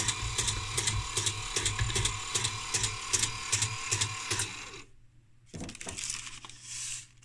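Built-in paper printer of a faulty audiometer running by itself after power-up, a rhythmic mechanical clatter. It cuts off a little under five seconds in, leaving only a few quieter handling noises.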